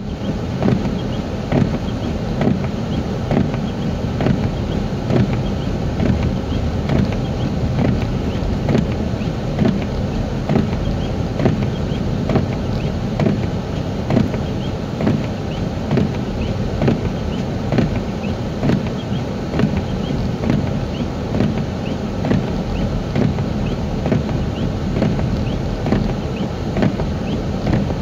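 Car driving on a snow-covered road: steady engine and tyre noise, with frequent small irregular knocks and clicks.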